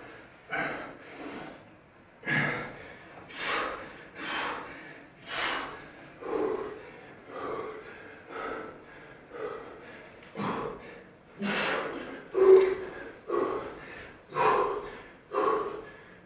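A person breathing hard under physical strain while climbing around a partner's body: a forceful rush of air about once a second, each breath fairly even in strength, one louder than the rest about twelve seconds in.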